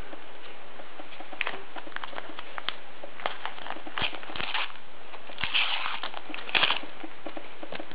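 A Panini paper sticker packet being handled and torn open by hand: scattered small clicks and a few short crinkling, rustling bursts, the clearest about halfway through and again shortly after, over a faint steady hiss.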